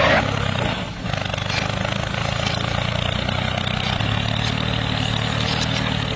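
Miniature model tractor running steadily as it pulls a tined cultivator through sand: a low engine-like hum with a fast flutter, starting abruptly and holding an even level.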